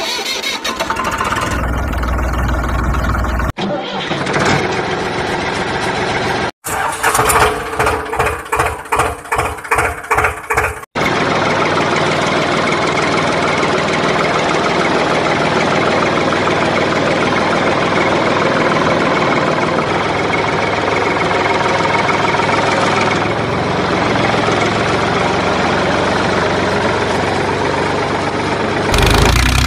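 Tractor engine starting: a few seconds of chugging at about two beats a second, then it catches and runs steadily, with abrupt cuts between segments.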